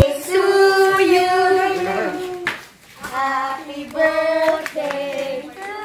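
A group of voices, children among them, singing together in drawn-out phrases, with a short pause a little under three seconds in.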